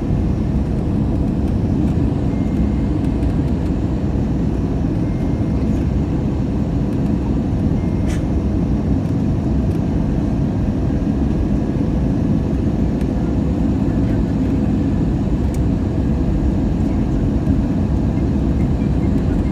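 Steady low rumble of an airliner's engines and airflow heard inside the passenger cabin during the landing approach.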